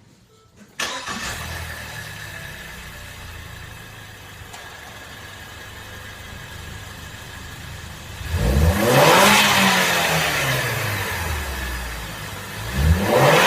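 A Ford Escape's 2.0 L EcoBoost turbocharged four-cylinder, still on its stock intake and factory blow-off valve, starts about a second in and settles to a steady idle. It is then revved twice, the first rev longer and the loudest.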